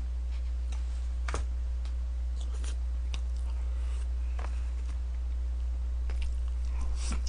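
A man eating with chopsticks: scattered light clicks of chopsticks on plastic lunchbox trays and chewing of a mouthful of grilled meat and rice, over a steady low hum.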